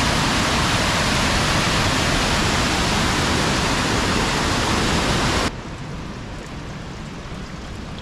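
Creek water pouring over a low mill dam and rushing through rocky rapids: a loud, steady rush of white water. About five and a half seconds in it cuts off suddenly to a much quieter background.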